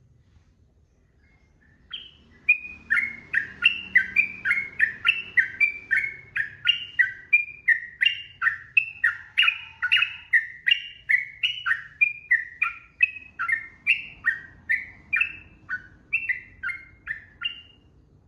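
Sooty-headed bulbul (trucukan) singing a long unbroken run of rapid, repeated chirping notes, two or three a second. It begins about two seconds in and stops shortly before the end.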